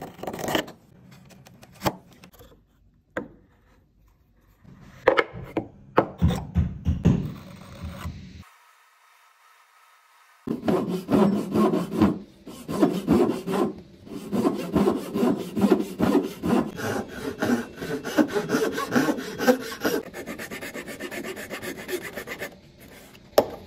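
A steel chisel paring hardwood in separate scraping strokes, with a pause between groups of strokes. After a brief silence, a Japanese back saw cuts through the wood in a quick, even rhythm of strokes that softens near the end.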